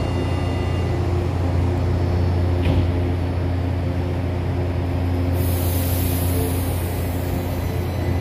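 São Paulo Metro train standing at the platform with its doors open, its equipment giving a steady low hum. A high hiss starts about five seconds in and fades over a couple of seconds.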